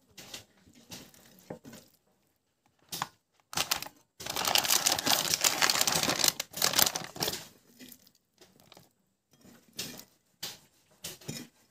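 Foil-lined bag crinkling and rustling as hands dig through raw chicken pieces inside it. It comes in short bursts, with a longer, louder spell of crinkling in the middle.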